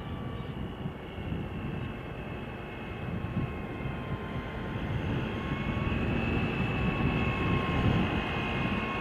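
Heavy multi-axle military truck's engine running as it drives slowly past, a low rumble with a steady high whine over it, growing louder as the truck comes closest near the end.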